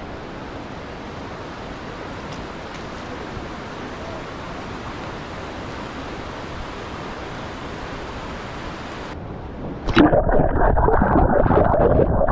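Steady rush of fast river water. About ten seconds in, the sound changes abruptly to a much louder, rough low rumble that lasts about two seconds.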